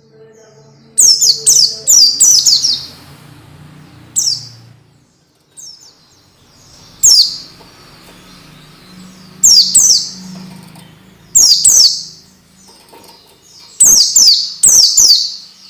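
White-eye (pleci) song: loud, short clusters of rapid, high, falling chirps, repeated every couple of seconds over a faint low hum.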